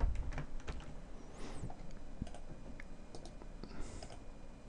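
Scattered light clicks of a computer mouse and keyboard, irregularly spaced.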